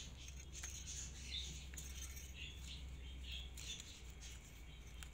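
Faint, scattered bird chirps with a few soft clicks from a thin wire being bent around a plant cutting in a plastic cup, over a low steady hum.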